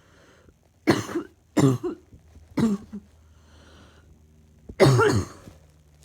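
A person's chesty, lingering cough: three hard coughs in quick succession, then a longer cough near the end.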